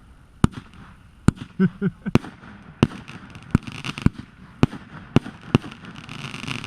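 Firework cake (compact battery) firing shot after shot: about nine sharp bangs, roughly one every half second to second, with a crackling hiss between them.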